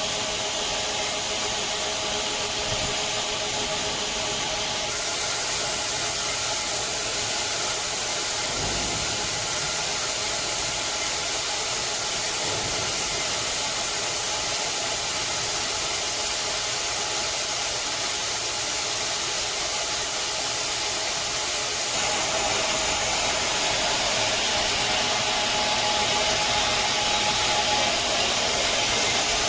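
Metal-cutting band saw machine running, a steady mechanical noise with a hiss and faint steady tones; it gets a little louder about two-thirds of the way through.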